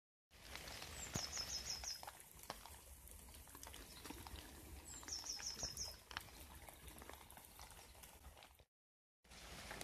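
A small songbird sings a quick phrase of about five high repeated notes, twice, about four seconds apart, over a steady patter of rain and dripping water. The sound drops out briefly at the start and near the end.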